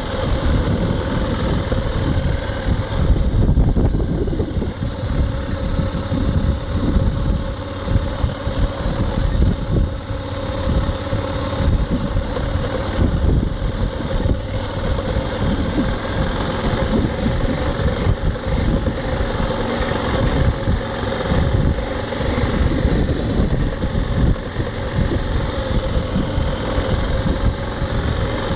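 2002 BMW F 650 GS Dakar's single-cylinder engine running steadily at low speed on a rough dirt trail, with irregular knocks and rattles from the bike going over the bumps.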